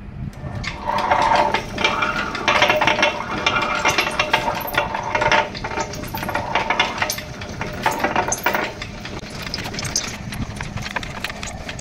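Table-top wet grinder running, its stone rollers turning in the drum and grinding soaked millets, brown rice and urad dal into dosa batter. A steady motor hum under a rough, rattling grinding noise that gets louder about a second in.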